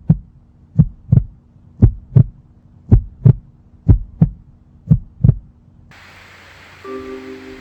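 Heartbeat sound effect: six double thumps, lub-dub, about one a second. About six seconds in, a steady hum comes in, with a higher tone beeping on and off over it.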